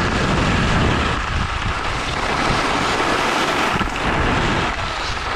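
Wind rushing over an action camera's microphone while skiing downhill, over the hiss of skis sliding on groomed snow.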